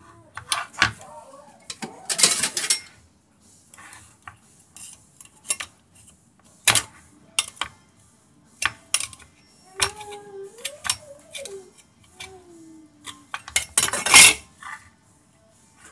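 Metal ring-pull lid of a Ma Ling luncheon meat tin being pried up with a metal utensil and peeled back: a run of sharp metal clicks and taps with scraping, tearing stretches as the lid pulls away, the loudest near the end.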